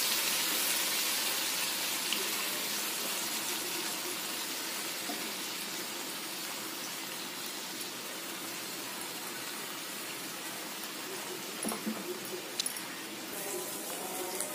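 Paneer cubes sizzling as they shallow-fry in oil and butter in a frying pan: a steady sizzle that eases a little over time, with a few light clicks about twelve seconds in.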